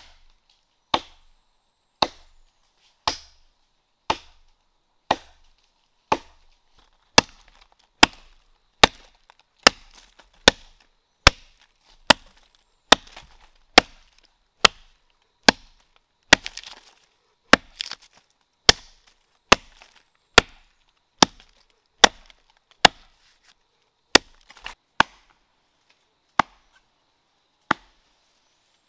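Axe chopping wood: a steady series of sharp, dry blows, about one a second at first and a little quicker through the middle.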